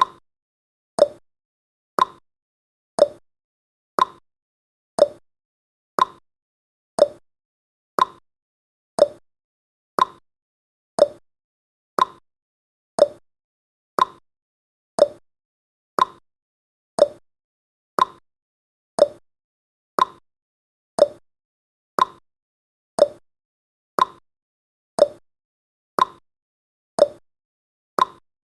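Clock tick-tock sound effect of a countdown timer: one short tick each second, alternating between a higher and a lower pitched tick, with silence between them.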